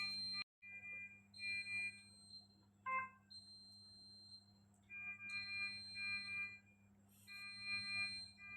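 A simple electronic melody of steady beep-like tones, played in short phrases of about a second each, over a low steady hum. The sound cuts out completely for a moment about half a second in, and there is a brief chirp about three seconds in.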